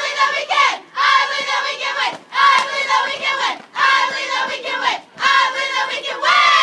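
A softball team of girls chanting a cheer in unison in a huddle, in about five rhythmic phrases of a little over a second each with short breaks between.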